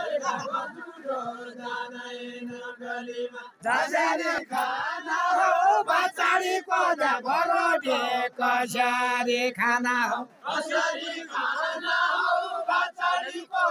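A group of men singing a Deuda folk song together, unaccompanied, in long held lines. The singing gets louder and livelier about four seconds in, then settles back to held notes near the end.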